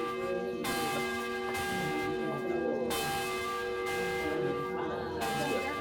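Large church bell cast by the Paul Revere foundry, swung by a bell rope and rung three times about two seconds apart, each stroke's ringing tones carrying on under the next.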